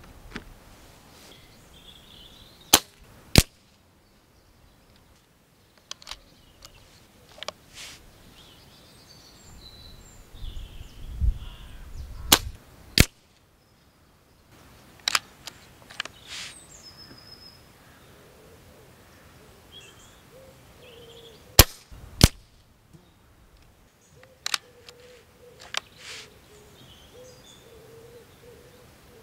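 Lee Enfield Sentry .177 pre-charged pneumatic air rifle being fired at a paper target, three times. Each shot is a sharp crack followed about half a second later by a second crack, with quieter clicks between shots.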